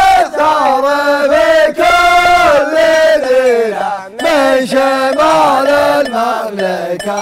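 Male voices chanting a song together, long held notes that slide between pitches, with a short break about four seconds in and a lower held note near the end.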